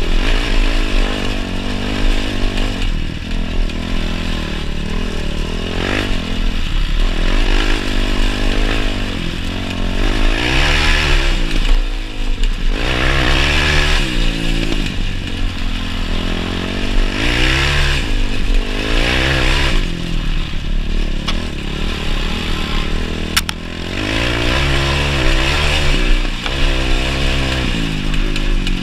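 Yamaha YFZ450 quad's single-cylinder four-stroke engine being ridden hard close to the microphone, its revs climbing and falling back again and again as it accelerates and backs off.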